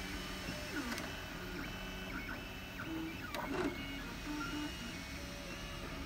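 MakerBot 3D printer running a print: its stepper motors whine in short steady tones that jump from pitch to pitch as the extruder head moves, with a few quick rising and falling sweeps about halfway through.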